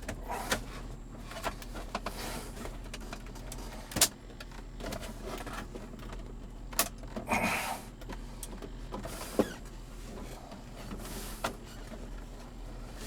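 Hard plastic interior trim knocking, clicking and scraping as a car console piece is pushed and worked into its opening, which resists. Sharp clicks come about half a second, four seconds and nine seconds in, with a longer scrape around seven seconds.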